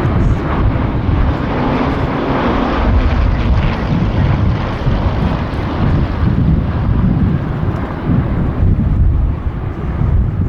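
Hawker Hurricanes' Rolls-Royce Merlin V12 piston engines and propellers running as the aircraft fly past; the sharper, higher part of the sound fades after about six seconds.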